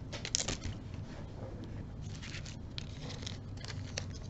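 Light scratchy rustling with a few small clicks as bead packets and beads are handled.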